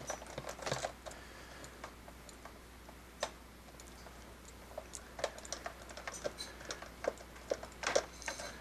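Scattered small clicks and taps of a hand screwdriver turning tight screws and of screws and the plastic case of a soldering station being handled during disassembly, sparse at first and more frequent in the second half.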